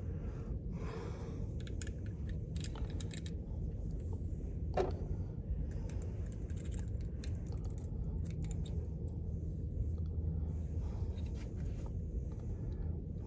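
Small metallic clicks and handling sounds of .22 Magnum cartridges being loaded by hand into the removed cylinder of a North American Arms mini revolver, with one sharper click about five seconds in. A steady low rumble runs underneath.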